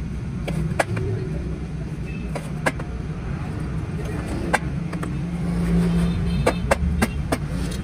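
Lead battery plates and separator sheets being slotted together by hand into a plate stack, making a series of irregular sharp clicks and taps over a steady low rumble.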